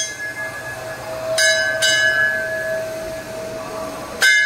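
Hanging brass temple bells being struck. There are clangs about a second and a half in, again just after, and once more near the end, with a steady ringing tone carrying on between the strokes.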